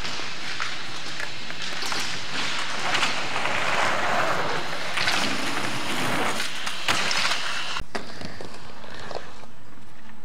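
Skateboard wheels rolling over a skatepark ramp, growing louder as the board comes close, with the board clacking and knocking a few times. About three-quarters through, the rolling cuts off abruptly, leaving a quieter background with a few light knocks.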